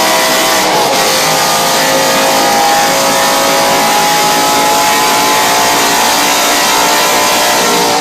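BMW M5 with G-Power tuning, its engine running loud and hard at high revs, the pitch gliding slowly with a brief wobble about a second in.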